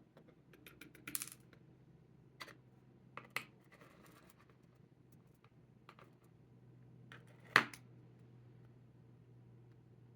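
Small metallic clicks and clinks of tiny lock pins, springs and tools being handled while a PACLOCK 90A Pro padlock's pin stacks are taken out, with a sharper clink about seven and a half seconds in. A faint steady hum runs underneath.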